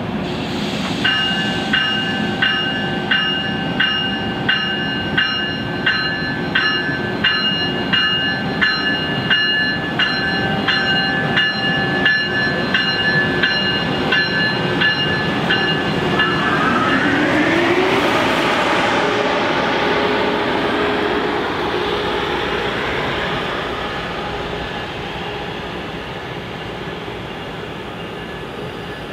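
Amtrak Acela trainset's bell ringing in even strokes about every half second for some fifteen seconds, then stopping. A rising electric whine follows as the train starts to move, and its running noise swells and slowly fades as it pulls away.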